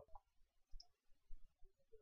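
Near silence, with a few faint, brief clicks.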